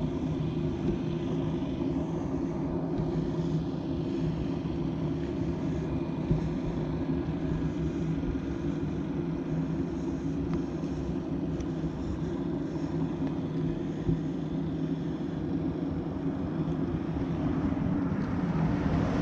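Steady low hum of an engine running without change, made of several fixed low tones over a rushing background.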